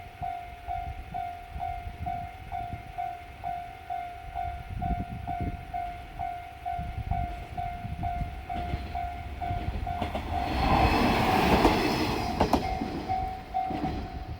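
Railway level-crossing warning bell ringing in a steady pattern of about two strokes a second. About ten seconds in, a diesel railcar passes over the crossing, and its engine and wheel noise swells to the loudest sound while the bell keeps ringing.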